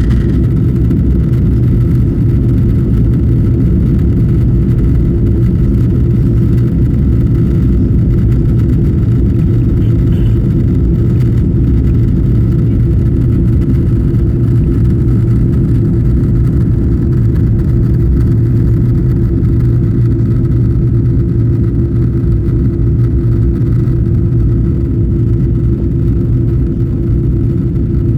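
Airbus A330 cabin noise in flight, heard inside the passenger cabin: steady engine and airflow drone, a deep rumble with a constant hum on top.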